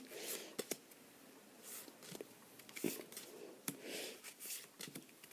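Pokémon trading cards being handled and slid over one another on a table: faint scattered clicks and a few short, soft swishes.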